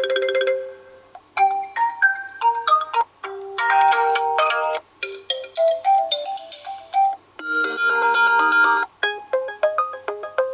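Realme C21y phone ringtones played one after another. Each is a short electronic melody of a second or two that stops abruptly before the next tune starts, about six different tunes in all.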